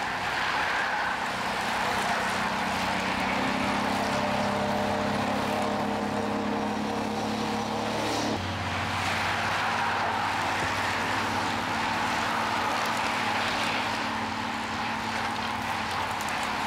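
A quad bike's engine comes closer and passes about eight seconds in, its pitch dropping as it goes by, then a lower engine hum carries on. Under it runs the steady hiss of many racing bicycles' tyres on the road.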